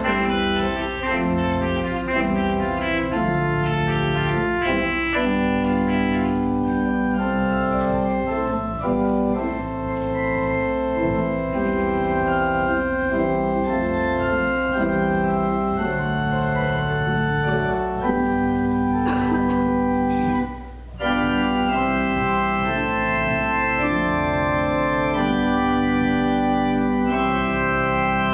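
Organ playing the prelude: slow, held chords over a sustained bass, with a brief break about twenty seconds in before the music resumes.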